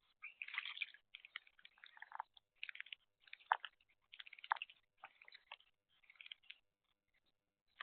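Small birds at a bird bath: faint, irregular short bursts of sound, mostly high-pitched, coming about once a second.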